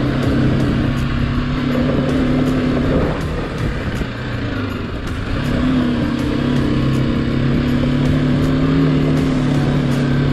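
BMW G310GS single-cylinder motorcycle engine running at a steady pace on a gravel trail. It eases off for a moment about three seconds in, then picks up again.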